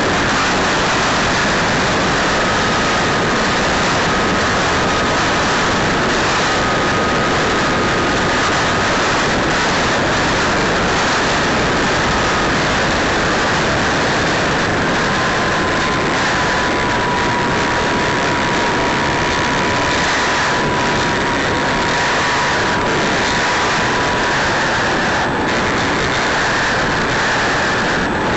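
E-flite Apprentice RC trainer plane in flight, heard on board: a loud, steady rush of wind and propeller noise over the microphone, with the electric motor's thin whine on top. The whine steps down in pitch twice.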